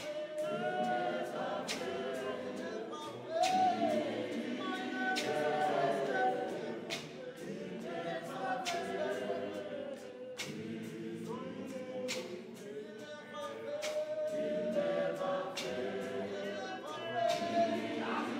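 Zion church choir of women singing a gospel song together in several parts, unaccompanied, over a sharp beat that keeps steady time about once a second.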